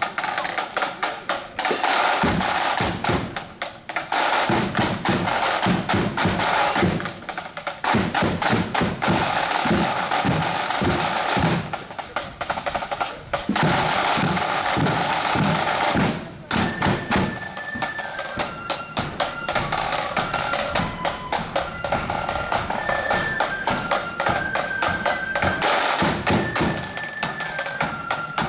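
Marching flute band: snare drums rolling and a bass drum beating for the first half, with a short break about halfway through, then the flutes take up a high tune over the drums.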